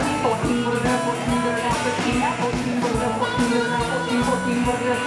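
Rock music with guitar and drums keeping a steady beat.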